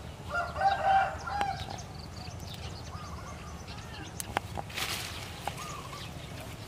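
A rooster crows once, starting about half a second in and lasting about a second.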